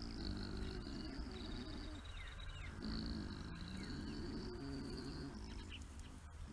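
Livestock calling in two long, low, wavering spells. A steady high insect trill runs behind them.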